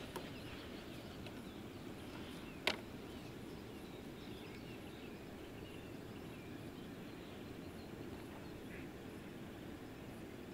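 Quiet outdoor ambience: faint birdsong over a steady low background noise, with a single sharp click about three seconds in.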